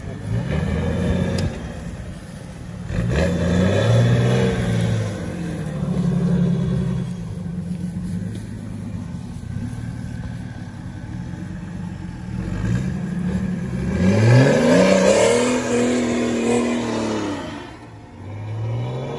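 An off-road tube-frame proto buggy's engine revving up and down again and again as it crawls over rough ground. The loudest and longest rev comes about fourteen seconds in.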